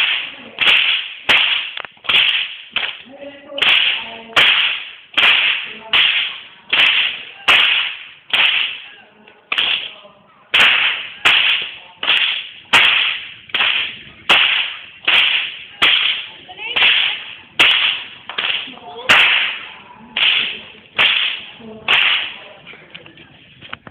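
A whip cracked over and over, about once every 0.7 seconds, each sharp crack followed by a short ringing echo. There is a brief pause about ten seconds in.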